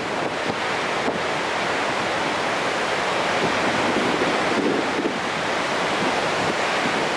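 Steady rushing roar of a large, high-volume river waterfall.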